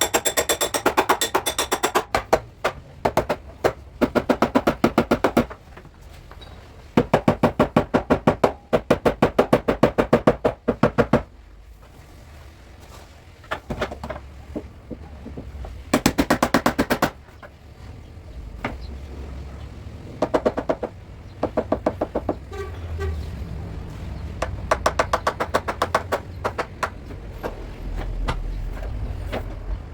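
Hammer rapidly tapping a car's sheet-metal body panel to smooth out a dent, in runs of about ten strikes a second with pauses between the runs.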